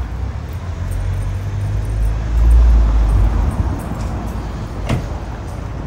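Street traffic rumble that swells for about a second just after two seconds in, with a single sharp click near the end.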